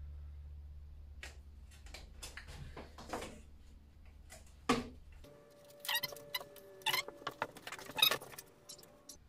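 Light clicks and taps of a tape measure and pencil being handled on a plywood board, sparse at first and coming thicker and louder about six seconds in. A low hum underneath cuts off suddenly about five seconds in.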